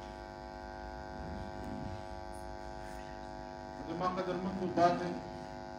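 Steady electrical mains hum with many even overtones, a constant buzz under the talk. A man's voice speaks briefly about four seconds in.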